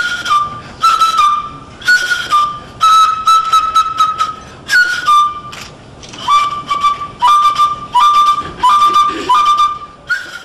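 A small hand-held flute, cupped in both hands at the mouth, played in short repeated phrases. Each phrase steps from a higher note down to a slightly lower one, with a breathy attack, and one longer note is held about three seconds in.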